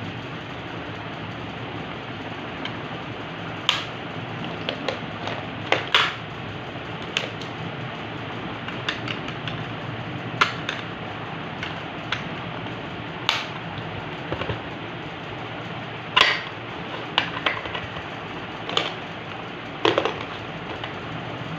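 Unboxing handling noise: objects and packaging being picked up and set down, giving about a dozen irregular clicks and knocks over a steady background hiss.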